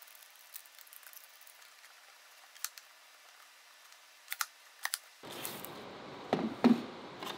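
Scattered light clicks and taps as plastic dust-collection fittings and aluminium foil tape are handled, then two knocks, the loudest sound, about six and a half seconds in, as the taped PVC pipe and fitting assembly is set down on the workbench.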